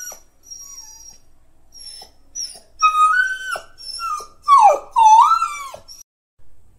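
Labrador whining in a string of high-pitched cries that rise and fall in pitch. The cries are faint at first and grow louder and longer from about three seconds in, then stop about a second before the end. It is a bored dog complaining to be let out.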